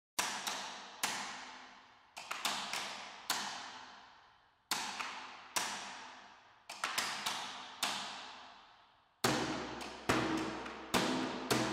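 Percussion music track opening with single sharp hits, each with a long echoing tail, spaced irregularly and some in quick pairs. About nine seconds in, a low drone and held tones join under the hits.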